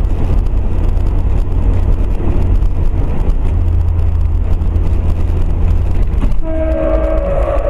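Steady low rumble of a moving car heard through a dashcam: engine and road noise. About six and a half seconds in, a car horn sounds briefly.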